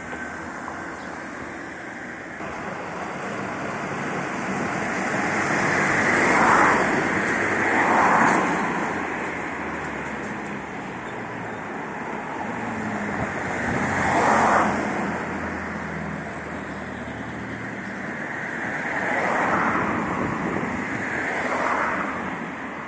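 Street traffic: cars driving past one after another, each rising and fading as it goes by, about five pass-bys over a steady traffic hum.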